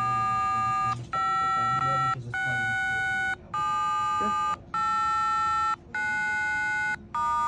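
DTMF telephone keypad tones played one after another. Each key's tone is a steady pair of pitches held for about a second, with a short gap before the next. Six full tones sound, and a seventh begins near the end.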